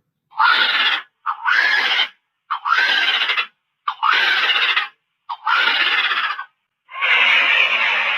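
A large bird giving loud, harsh calls: five calls each just under a second long, about one and a half seconds apart, each led by a short clipped note, then a longer drawn-out call near the end.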